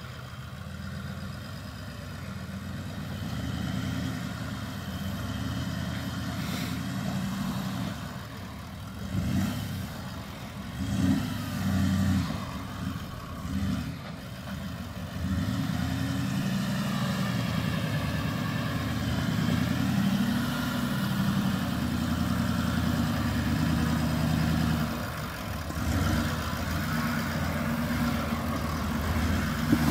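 Turbo-diesel V8 of a Toyota LandCruiser 76 Series crawling over a rutted dirt track at low revs, with short blips of throttle about a third of the way in. It gets louder and steadier as it draws near.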